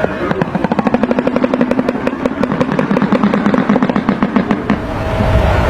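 Shoebill clattering its bill, a fast, even rattle of sharp clicks that stops about three-quarters of the way through.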